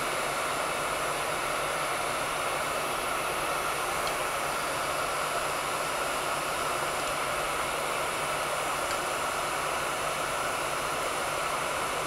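Heat gun running steadily, its fan giving an even blowing hiss with a faint low hum, while it shrinks clear heat-shrink tubing onto a cable lead.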